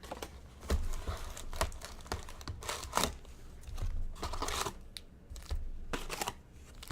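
Crinkling and tearing of trading card pack packaging being handled and opened, in irregular rustling bursts.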